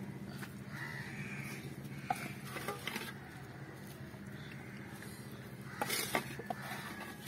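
A few faint clicks and taps from a metal serving spoon while onion-fish masala is spread by hand on a banana leaf, over a steady low hum.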